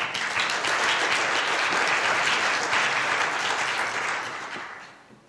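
Audience applauding, starting at once and dying away near the end.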